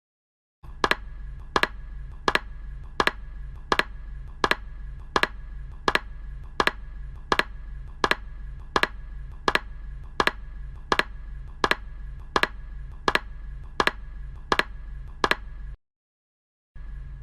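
Anime sound effect: a sharp click repeating evenly, a little faster than once a second, some twenty times over a low steady hum, then cutting off suddenly near the end.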